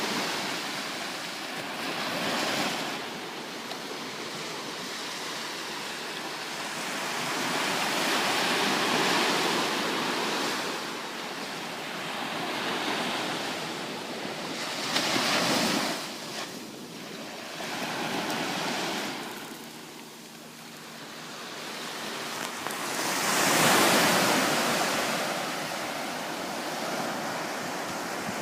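Waves washing onto a shore, the surf noise swelling and fading every few seconds, with the loudest surge about three-quarters of the way through.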